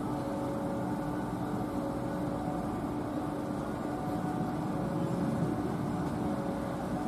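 CC203 diesel-electric locomotive approaching at the head of a passenger train, its engine giving a steady drone with a constant hum.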